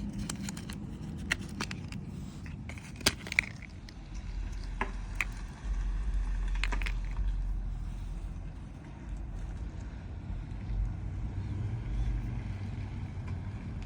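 Scattered light clicks and rattles from handling the cut-open plastic box of a tow-hitch wiring harness, over a steady low rumble.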